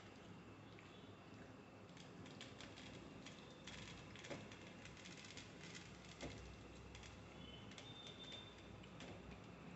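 Faint, irregular crackling and clicking of flaky Kerala parotta being torn by hand over a steel plate, with a couple of slightly louder taps around the middle.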